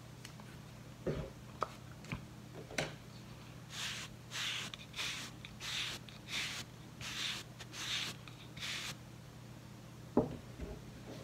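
Fingernails scratching short, dandruff-flaked hair and scalp close to the microphone: about eight dry scratching strokes, roughly one and a half a second, after a few light clicks. A sharp knock near the end.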